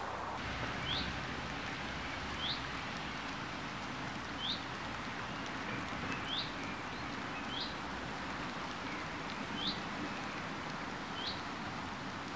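Steady rain falling, with a bird repeating a short rising chirp about every one to two seconds.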